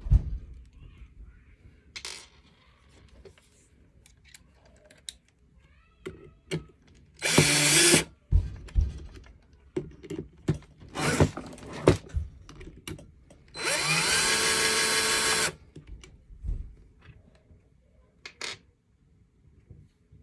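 Handheld power drill run in two bursts, one of about a second and a longer one of about two seconds, the motor spinning up at the start of each. Short clicks and knocks of parts being handled fall between the runs.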